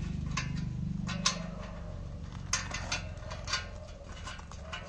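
A spanner and a rusty bend-pipe bolt on a Royal Enfield Bullet's exhaust clinking as the bolt is loosened: a handful of sharp metallic clicks at irregular intervals.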